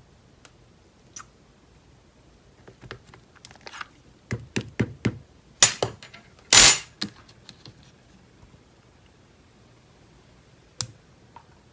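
Handling noises: a run of small clicks and knocks, densest in the middle, with two short louder noisy sounds about five and a half and six and a half seconds in, and a single sharp click near the end.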